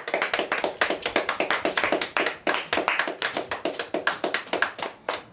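A small group of people applauding: many quick, uneven hand claps overlapping throughout.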